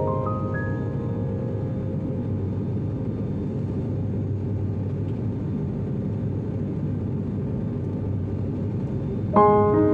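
Steady low drone of an airliner cabin in flight, the engines and airflow, with no change in pitch. Piano notes die away in the first second, and piano music starts again near the end.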